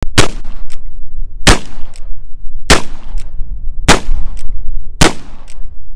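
Five shots from a brass-framed .44 calibre 1851 Navy-pattern cap-and-ball percussion revolver, fired one at a time about a second and a quarter apart. Each shot is followed about half a second later by a short sharp click.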